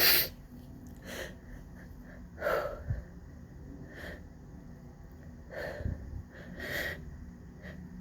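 A person's sneezing fit from a pollen allergy: one loud, sharp sneeze right at the start, then about five smaller bursts of sneezing and gasping, wheezy breaths over the following seconds.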